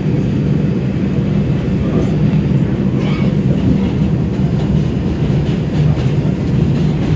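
New York City subway 4 train running, heard from inside the car: a steady, loud rumble of wheels on rail with a few faint clicks.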